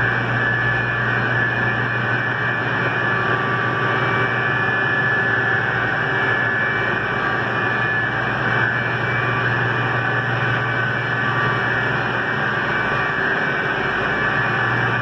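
Steady drone of a chiller plant room's running machinery, large electric pump motors among it: a constant low hum with thin, steady high whining tones on top.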